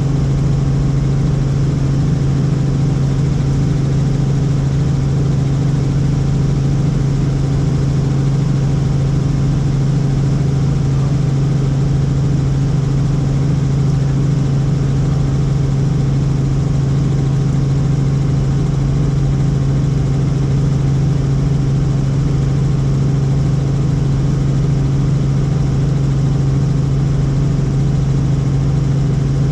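Helicopter in flight, its engine and rotors making a loud, steady drone with a strong low hum that does not change.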